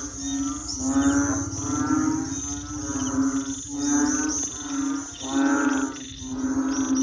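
A chorus of frogs croaking, with loud pulsed calls repeating about once a second, over a steady high trilling of crickets.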